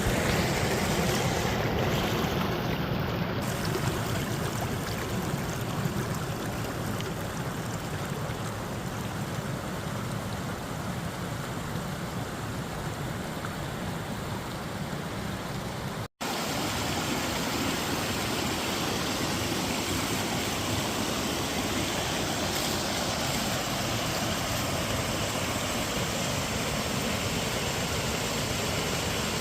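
Stream flowing with a steady rush of water. The sound cuts out for an instant a little past halfway through, then carries on.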